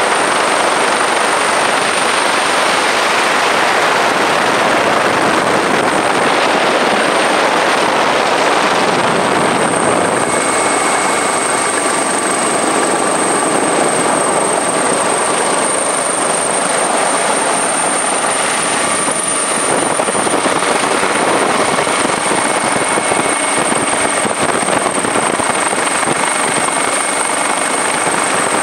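Helicopter noise heard from on board: a steady, loud rushing of engine and rotors with a thin, steady high whine over it.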